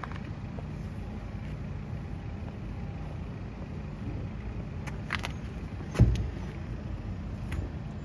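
Steady low hum of a car engine idling. A few light clicks come about five seconds in, and a single sharp thump about six seconds in.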